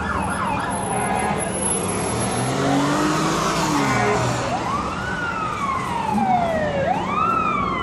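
Emergency vehicle siren wailing, its pitch rising quickly and then falling slowly in cycles of about two seconds, over street noise.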